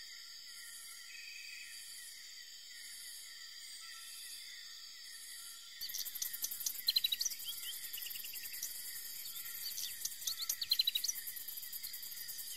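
Steady insect chorus of crickets, with a regular high pulsing in the first half. About six seconds in, a rustling background rises and quick, high bird chirps come in two short clusters.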